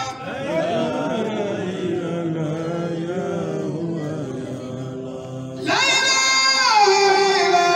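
Devotional chanting: a sung voice drawing out wavering notes, turning suddenly louder and higher a little under six seconds in.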